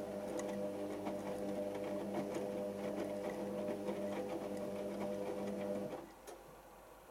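Hotpoint First Edition HVL211 washing machine's drum motor humming as it tumbles the load, with the soft knocks of laundry dropping inside the drum. About six seconds in the motor stops and the tumbling ends, followed by a single click, as the machine begins heating the water to 90°C without tumbling.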